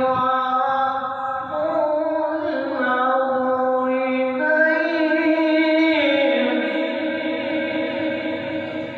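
A male reciter chanting the Quran (tilawat) in long, held melodic notes that step up and down in pitch, fading near the end.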